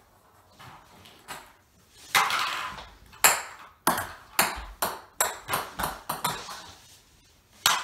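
Small hollow plastic Connect 4 Shots balls bouncing and clattering: starting about two seconds in, a quick run of sharp plastic clicks and pings, a dozen or so, with one short rattle among them.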